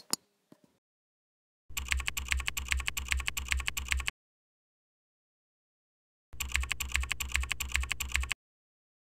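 Typing on a computer keyboard: two bursts of rapid keystrokes, each about two seconds long, with a pause of about two seconds between them.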